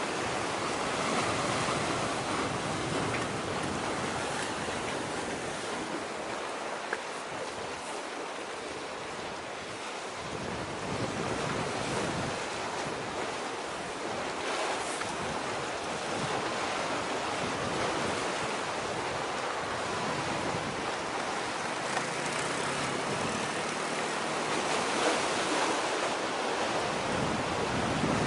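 Steady rush of wind and sea surf, with gusts buffeting the microphone.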